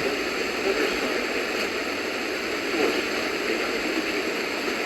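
Steady hiss of radio static from a weakly received broadcast.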